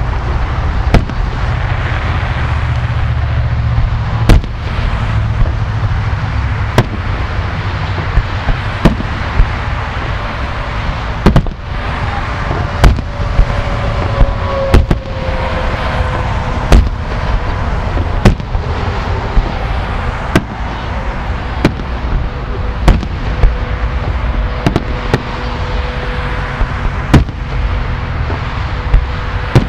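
Aerial fireworks bursting in a rapid series of sharp bangs, about one or two a second, over a steady low rumble, with a faint falling whistle in the middle.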